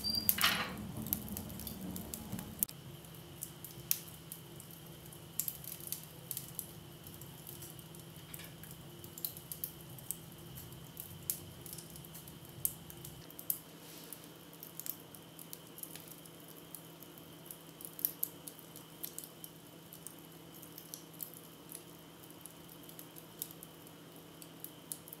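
Wood fire crackling in a cast iron wood stove: irregular sharp pops and snaps, a few a second, over a faint steady hum. A brief scraping sound at the very start as a hand works at the stove front.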